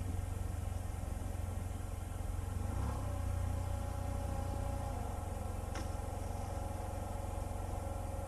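Yamaha TMAX560 scooter's parallel-twin engine running steadily, a low even hum with little change in pitch.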